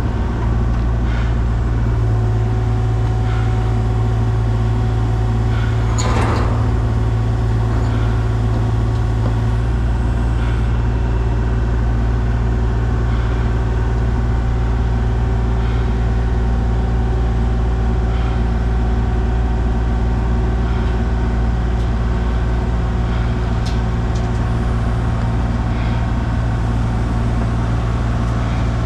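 Diesel engine of a heavy excavating machine running steadily, with a single metallic clank about six seconds in.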